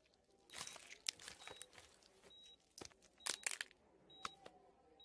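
Faint cartoon sound effects: a scattered string of short crunching, tearing noises and sharp clicks.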